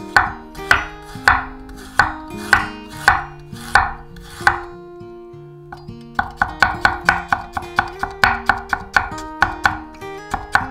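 Chef's knife cutting fresh ginger on a wooden end-grain cutting board: slow, even strokes about every half second at first, then after a short pause a quicker run of about four to five chops a second as the slices are cut into fine julienne. Soft acoustic-guitar background music plays underneath.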